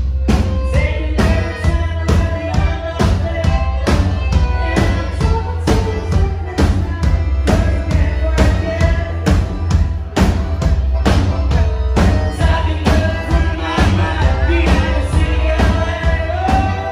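Live band music: a steady drum beat about twice a second under a heavy bass line, with accordion and a singing voice.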